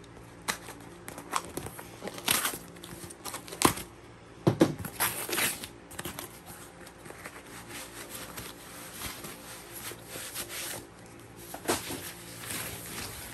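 A parcel being torn open by hand: irregular rips and crackles of packing tape and wrapping, loudest in the first half. Near the end comes the rustle of a foam wrap being pulled off.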